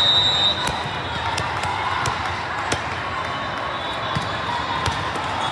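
A referee's whistle blows once, briefly, right at the start, signalling the server to serve. After it comes the noise of a busy sports hall: scattered sharp ball smacks and bounces from the courts over a wash of indistinct crowd voices.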